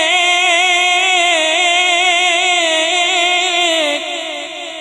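A man singing a naat, holding one long wavering note into a microphone without instruments; it weakens near the end.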